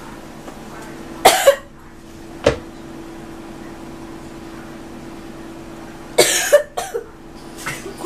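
A person fake-coughing in two short fits, one about a second in and another about six seconds in, for a coughing-up-blood prank. A single sharp click falls between the fits, over a steady low hum.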